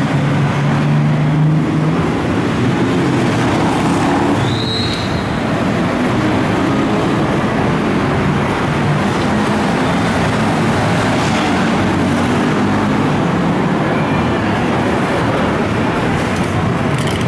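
Steady, loud roadside ambience with a constant traffic-like rumble. A short high squeak comes about five seconds in.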